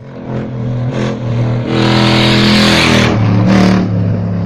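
Off-road rally car engine revving hard as it races past on a sandy dirt track, with a loud rushing noise at its loudest from about two seconds in to three.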